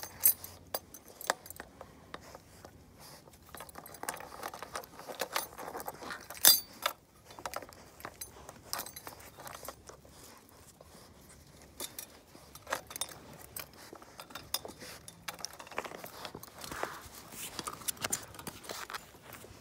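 A ring of car keys jangling and clinking in irregular little bursts as Labrador puppies mouth and paw at them.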